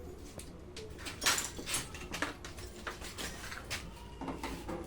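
Parts of a top-load washing machine being handled and worked on by hand: an irregular run of sharp clicks, knocks and scrapes, the loudest about a second in.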